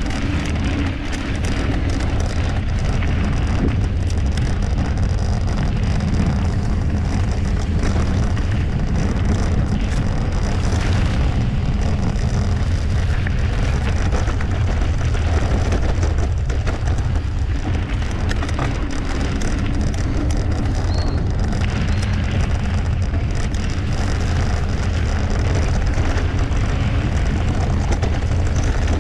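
Mountain bike rolling along a dirt trail: steady tyre rumble and frequent small rattles and knocks from the bike, with wind buffeting the microphone.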